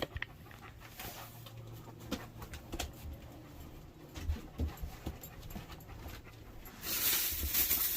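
A dog panting hard in quick, rhythmic breaths, starting near the end, after several seconds of faint clicks and knocks.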